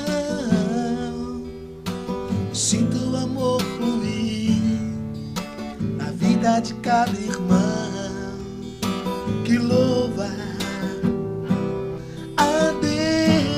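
Band music with strummed acoustic guitar over steady bass notes and a melodic line that bends in pitch above them.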